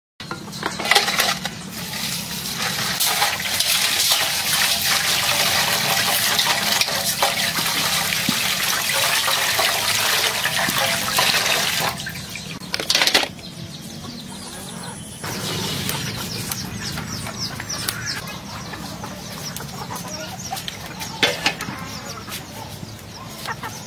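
Water splashing and sloshing in a metal basin as a live spiny lobster is handled in it, loud for the first half and then quieter after a sudden cut, with chickens clucking in the background.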